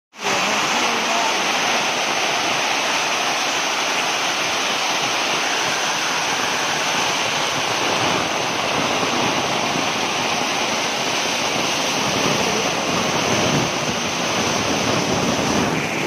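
Rainwater rushing down a long flight of stone steps as a continuous cascade: a loud, steady rush of water.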